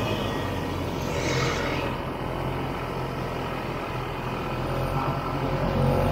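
Vintage 1967 Ski-Doo Olympic snowmobile's two-stroke engine running steadily while riding slowly over fresh snow, getting a little louder near the end.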